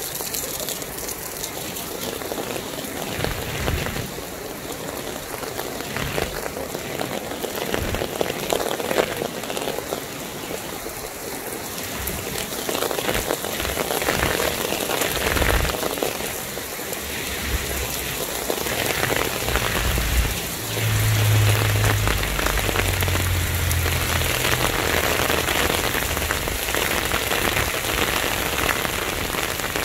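Heavy rain pouring down on a paved street and parked cars, a dense steady hiss that grows louder about two-thirds of the way through, with a deep rumble part way through.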